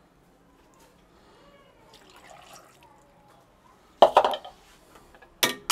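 Milk poured through a stainless steel mesh sieve into a pan: faint dripping and trickling, then about four seconds in a sudden louder splash of pouring. A couple of sharp metal knocks follow near the end.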